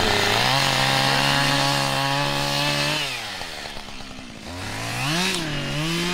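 Chainsaw engine revving: it is held at high speed for about three seconds, drops back, then revs up again about five seconds in.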